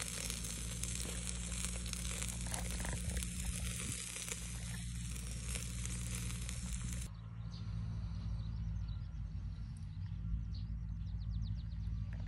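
Lamb sizzling and its fat crackling on the wire grill of a shichirin charcoal-briquette stove: a dense hiss full of fine pops that cuts off suddenly about seven seconds in. A steady low hum runs underneath.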